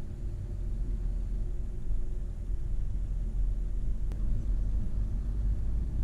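Car driving along a road, a steady low rumble of engine and tyres heard from inside the car.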